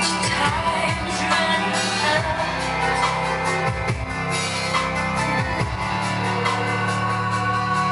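A song with singing and drums playing through a Logitech Z-5500 5.1 speaker system, with strong bass from its subwoofer.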